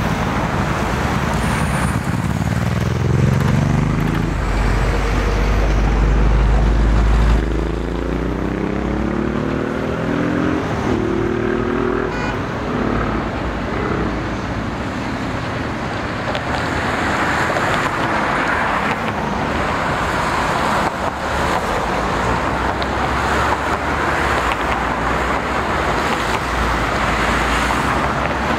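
Busy road traffic with a heavy vehicle accelerating: a deep rumble and engine pitch climbing in steps through the first half, then a steady hiss of passing traffic.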